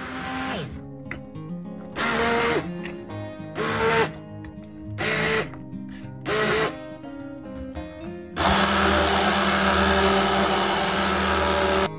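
Immersion blender puréeing cooked pumpkin chunks. A run winds down with falling pitch about half a second in, then four short pulses come about a second and a half apart, and a longer steady run of about three and a half seconds starts near the end.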